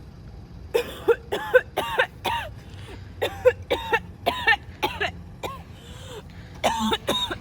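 Repeated coughing: some twenty short, voiced coughs in quick runs of two to four.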